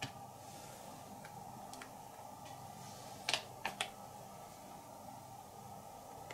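Light clicks and taps of small board-game pieces, soldier tokens and population cubes, being set down on a table. The loudest two come close together about three seconds in, after a few softer ticks, over a faint steady hum.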